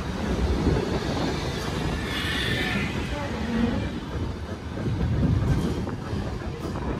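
Vintage tram running on rails with a steady low rumble, and a brief higher-pitched squeal about two seconds in.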